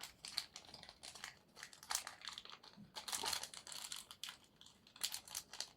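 Packaging crinkling and rustling in the hands as a small parcel is unwrapped, in irregular bursts of crackle.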